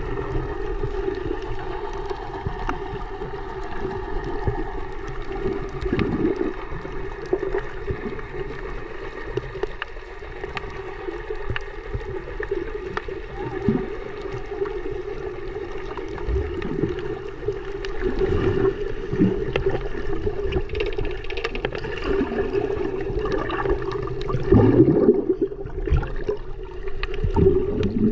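Underwater sound picked up by a submerged camera while snorkelling: muffled water noise with a steady low hum, broken by irregular gurgles and bumps of water moving against the camera, busier and louder in the second half.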